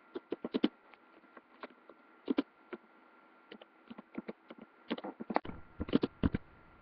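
Typing on a computer keyboard: irregular key clicks in short runs, sparse in the middle and coming faster near the end.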